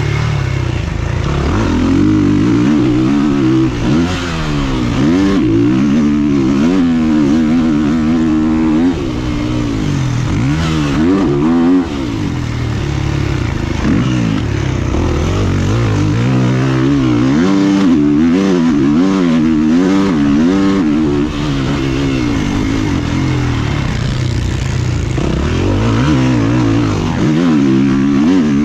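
Two-stroke motocross bike engine heard from a helmet camera, revving up and falling back over and over as the rider accelerates, shifts and backs off the throttle.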